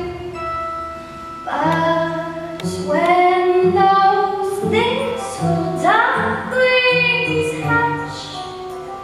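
Voices singing a musical-theatre song with instrumental accompaniment.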